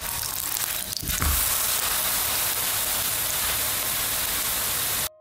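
Pancake batter frying in hot oil in a nonstick pan: a steady, loud sizzle. A few low knocks come early as the spatula works under the pancake. The sizzle gets louder and brighter about a second in, then cuts off suddenly near the end.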